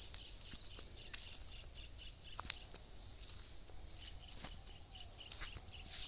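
Rural outdoor ambience: a high chirping call repeated about five times a second in two runs, over a low steady rumble, with a few sharp footstep clicks on brick paving.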